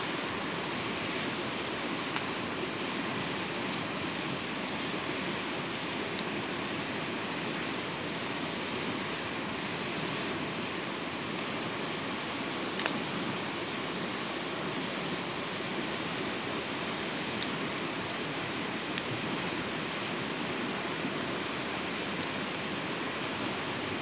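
Steady rushing noise with a few sharp ticks scattered through it.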